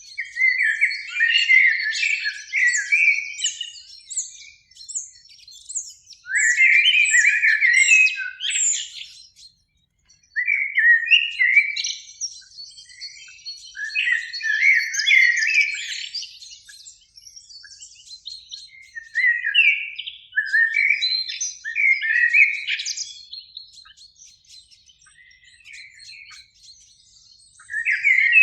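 Common blackbird song: a string of phrases of warbled, fluty notes, each mixed with higher twittering, with short pauses between them.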